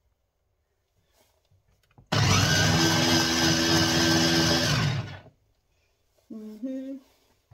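Kenwood mini chopper's electric motor running for about three seconds as it blends a thick peanut-butter sauce, starting about two seconds in and stopping abruptly; a steady whirr with a constant hum.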